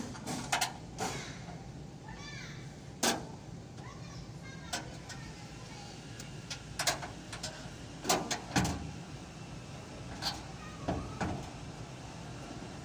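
Irregular knocks, taps and clicks from hands and tools working on a car's body trim, about a dozen spread unevenly, over a steady low hum.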